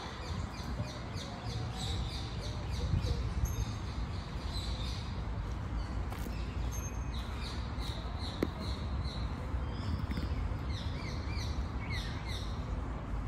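Small birds chirping and twittering in rapid, overlapping series of short high chirps, over a steady low background rumble.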